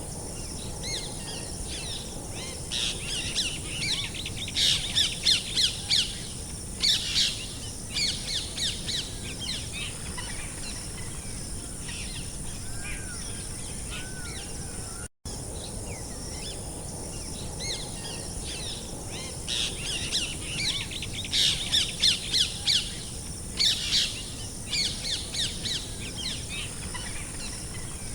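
Songbirds chirping and twittering in quick clusters over a steady high background hiss, a recorded nature ambience that loops: after a brief dropout about halfway through, the same stretch of birdsong plays again.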